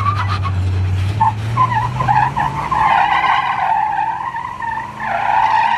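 Toyota Tundra pickup's engine pulling under load at low revs, rising in pitch about two seconds in, while its tires squeal and scrub on the sandstone slickrock as the truck crawls up a steep ledge.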